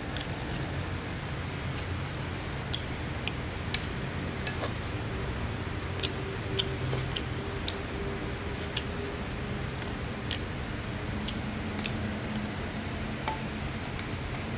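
Metal spoon tapping and scraping against a nonstick frying pan as fried rice is stirred: irregular light clicks, about one or two a second, over a steady low hum.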